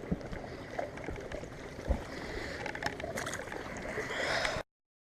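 Ambient noise on a fishing boat: a steady hiss of wind and water, with a few light knocks and one thump about two seconds in. The sound cuts off abruptly near the end.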